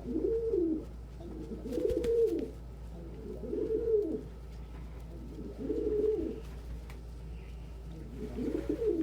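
Domestic pigeon cooing: five low coos in a row, about two seconds apart.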